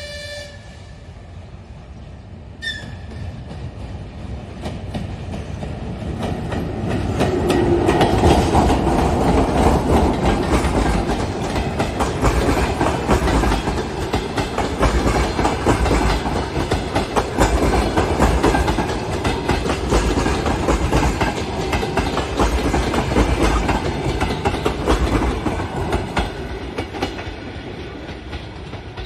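Train passing, wheels clattering over the rail joints: the clatter swells from about six seconds in, stays loud for most of the time and fades near the end. A short horn toot sounds at the very start, and another brief one follows a couple of seconds later.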